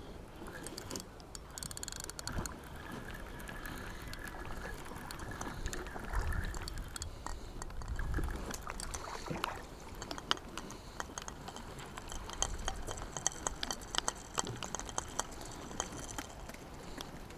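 Spinning reel being cranked to wind line in, with a steady whirr for the first few seconds, then a run of small clicks and taps as the tackle is handled. Wind gusts on the microphone a couple of times.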